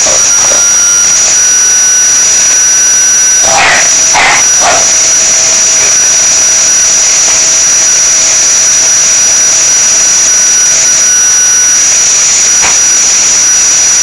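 Loud, steady whine and rush of air from an electric motor-driven appliance. A dog gives a few quick barks about four seconds in and one more near the end.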